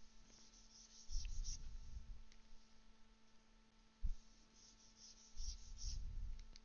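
Pen stylus dabbing and scratching on a drawing tablet, laying down spatter-brush strokes in two short bouts about a second each, with a single sharp tap about four seconds in. Faint.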